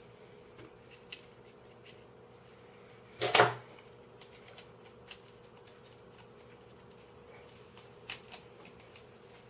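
Small clicks and taps from handling 3D-printed plastic puzzle pieces and a screwdriver as a long screw is driven into the puzzle, with one louder clatter about three seconds in. A faint steady hum sits underneath.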